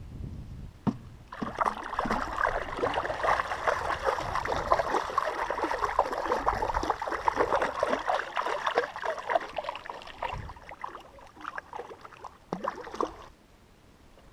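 A hooked longnose gar thrashing and splashing at the water's surface, a dense run of quick splashes that starts about a second in and stops near the end.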